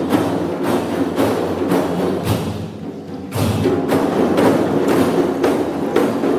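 Music with a steady percussion beat, sharp hand-struck strokes about three a second, over a pitched melody.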